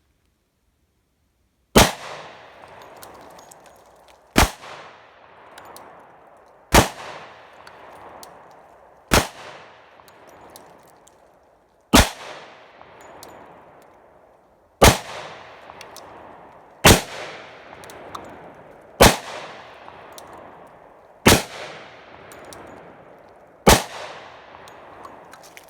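Glock 29 pistol firing 10mm rounds: ten single shots at a slow, even pace, about two to three seconds apart, each followed by a long echoing tail.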